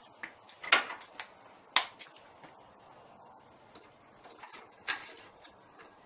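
Still-hot solidified flux cracking from thermal shock: a series of sharp, irregular snaps and pops as it shatters, the two loudest about one and two seconds in, with smaller ticks after.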